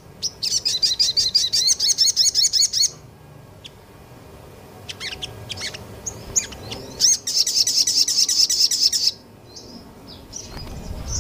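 Small songbird singing in rapid-fire 'nembak' style: two fast runs of repeated high, sharp notes, each about two to three seconds long, with scattered single chirps between and after them.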